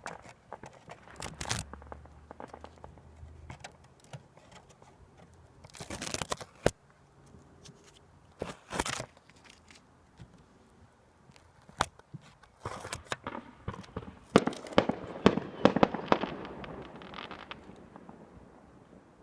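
Small fireworks going off: scattered pops and sharp single cracks, then a dense run of rapid crackling for about four seconds that dies away.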